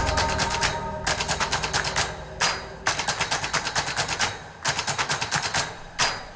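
Several bursts of rapid, evenly spaced sharp hits, about eight to ten a second and each lasting a second or two with short breaks between, like machine-gun fire in an edited soundtrack.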